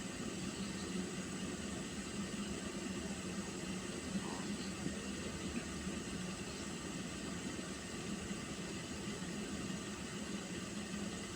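Pot of water heating toward the boil, giving a steady hiss with a low hum underneath and a few faint crackles.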